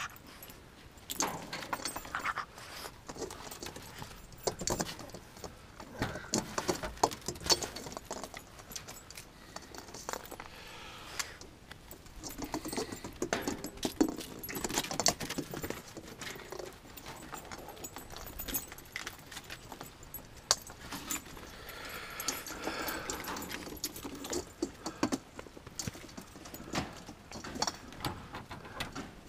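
Irregular light clicks, knocks and jingling throughout, from Yorkshire terriers scampering about on a wooden deck, with their claws clicking on the boards and their collar tags jingling.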